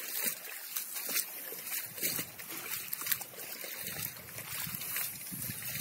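Irregular rustling and crackling of leaves and low plants being brushed past while walking, with footsteps.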